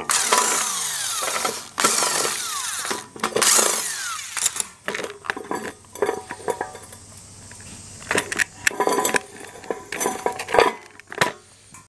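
Hand dismantling of an electric hot plate: loud rough scraping and prying at its metal and plastic housing for the first few seconds, then scattered knocks and clinks as the parts are handled.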